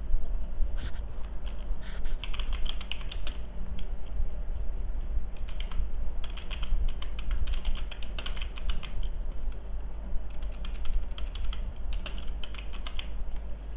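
Typing on a computer keyboard in runs of quick keystrokes with short pauses between, over a steady low hum.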